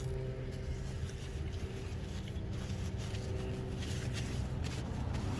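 A person chewing crispy seasoned fries, with faint crunches and rustling about three and a half to five seconds in, over a steady low hum.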